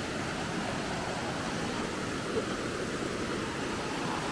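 Shallow rocky river running over rapids: a steady rush of water.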